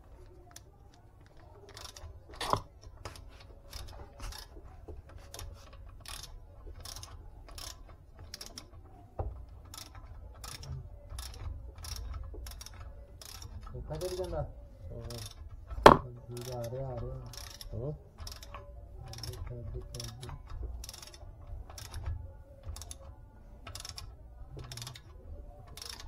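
Hand ratchet wrench being worked back and forth to tighten a nut on a suspension arm: a steady run of pawl clicks, about two a second, with a loud knock about two-thirds of the way in.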